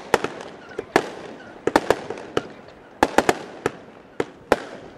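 Fireworks going off: a fast, irregular series of sharp bangs, sometimes several close together, each with an echoing tail.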